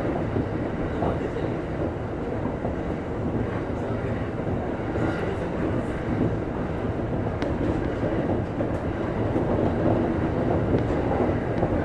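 JR East Shonan-Shinjuku Line electric commuter train running at speed, heard from inside the front car: a steady rumble of wheels on rail and running gear, with a few faint clicks.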